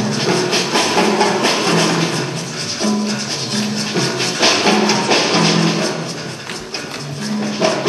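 Music with fast, dense rattling percussion over a line of low held notes that step in pitch.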